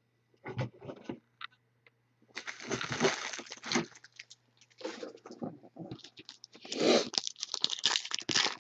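Trading cards handled and set down, then the foil wrapper of a Topps Finest football card pack crinkling and tearing open. The tearing is loudest in the last two seconds.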